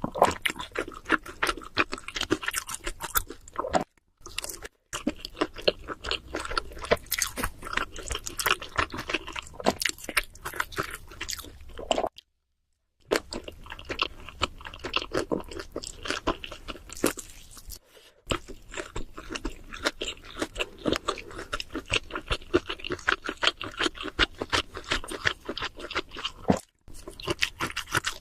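Close-miked chewing and crunching of cheese seafood pizza: a dense run of crisp crackles and wet mouth clicks, broken by a few brief complete silences.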